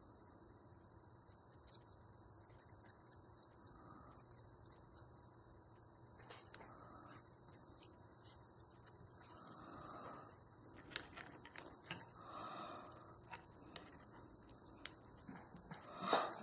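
Faint small metallic clicks and scrapes as steel pinion gears and a grease applicator are handled on a Hardinge Sjogren collet chuck body, with a few louder clicks near the end.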